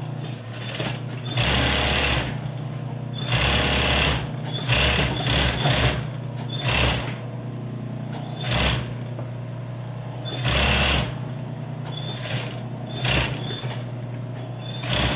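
Industrial sewing machine stitching in short runs, starting and stopping about ten times, each run from half a second to about a second long. A steady low hum continues between the runs.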